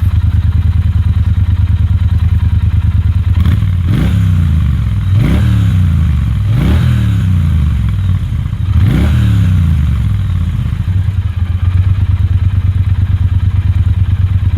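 Triumph Bonneville T120's 1200 cc parallel-twin engine idling through Vance & Hines peashooter exhausts with a steady, even pulse, blipped four times in a row about four to nine seconds in, each rev rising and falling back to idle.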